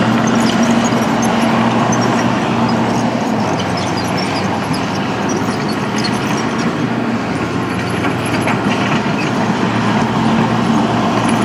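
Excavator's diesel engine running steadily with a constant hum and scattered light rattles; the hum's tone drops back for several seconds in the middle, then comes up again.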